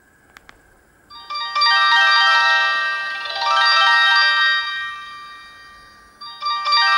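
Samsung GT-E1200Y mobile phone playing one of its built-in polyphonic ringtones: a bright melody of overlapping notes that starts about a second in, fades away, and begins again near the end. Just before the melody, two quick clicks.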